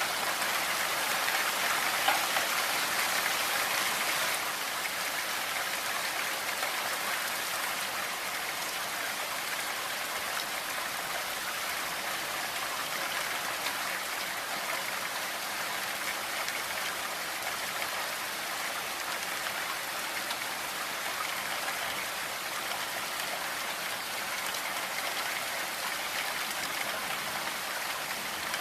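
Snowstorm ambience: a steady, dense hiss of wind-driven snow, a little louder for the first four seconds.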